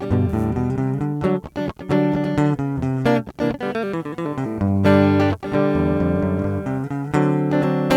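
Guitar playing plucked notes and chords, recorded through the Comica LinkFlex AD5 audio interface to demonstrate its equalization modes (Deep, Natural, Bright).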